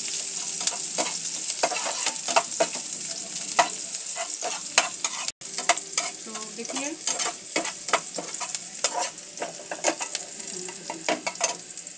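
Sliced onions and cumin sizzling in a little hot oil in a nonstick frying pan, with a steel spoon scraping and clicking against the pan as they are stirred. The sound drops out for an instant about five seconds in.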